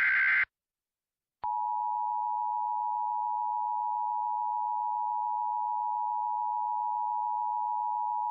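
The tail of an Emergency Alert System digital data burst, a shrill buzzing code, ends about half a second in. After a second of silence the EAS two-tone attention signal starts and holds steady at one level, announcing the next alert message.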